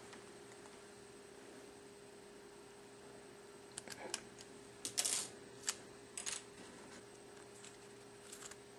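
Small sharp clicks and scrapes from a SIM card tray being handled and pushed into the top edge of an iPhone 3GS, in a handful of separate clicks from about halfway through, over a faint steady hum.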